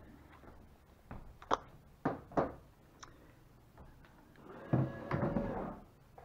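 Tools being handled in a sailboat's cockpit: a few sharp knocks and clicks, then a louder thud with a short ring near the end as a cordless drill is set down.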